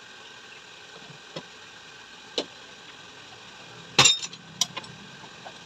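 Sharp metallic clinks of tools and parts being handled while a motorcycle mono-shock absorber is reassembled: a few single clinks, then a loud clattering cluster about four seconds in, over a faint steady hum.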